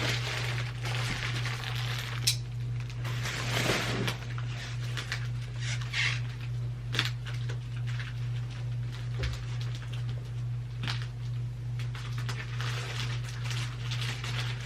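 Packaging being opened by hand: irregular crinkling, rustling and crackling with a few sharp clicks, over a steady low hum.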